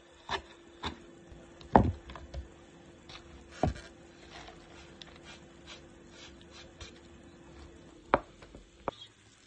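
Kitchen knife chopping on a wooden cutting board through fresh dill and boiled eggs: a few sharp knocks in the first two seconds, one near four seconds and two more near the end, with a faint steady hum underneath.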